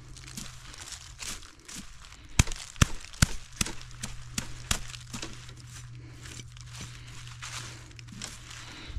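Dry leaves and brush rustling and crackling, with three sharp snaps about two and a half to three seconds in, over a steady low hum.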